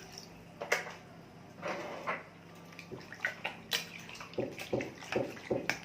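Milk being poured into a bowl of marinating chicken cutlets: a wet, splashing pour with scattered clicks of the container. Near the end comes a quick run of short knocks.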